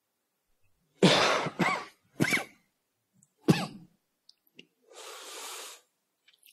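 A person coughing about four times in quick succession, the first cough the longest, followed a second later by a softer breathy exhale.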